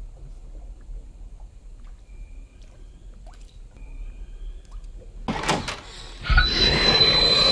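Horror film sound design: a low, quiet rumble with a few faint ticks, then about five seconds in a few sharp loud hits, followed by a loud harsh rush of noise with a thin steady high whine.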